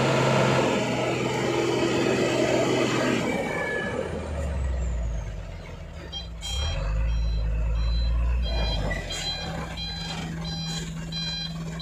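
Tanker truck's diesel engine running under load in mud, with a deep low rumble from about four seconds in. From about six seconds in, a reversing beeper sounds about twice a second as the truck is put in reverse.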